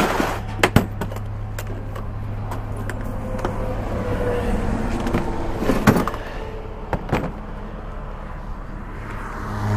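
Heavy truck engine idling steadily, with a few sharp metallic knocks and clicks: two close together near the start, and more around six and seven seconds in.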